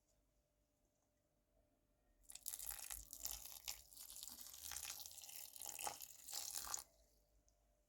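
Milk being poured into a bowl of flour, butter and egg mixture for dough: a noisy liquid trickle that starts about two seconds in and cuts off sharply about four and a half seconds later.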